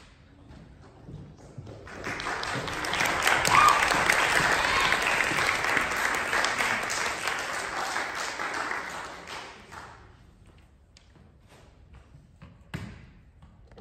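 Audience applauding for about eight seconds, starting about two seconds in and dying away. Afterwards come faint taps and a single sharp knock near the end.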